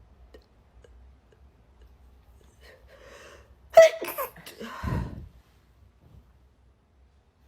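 A person sneezing as a nasal swab tickles the inside of the nose: a short breathy intake, then one sharp, loud sneeze about four seconds in, followed a second later by a weaker second burst.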